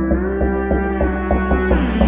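Background music: a track with a steady beat, about three a second, over a bass line, and a lead line that slides up and down in pitch.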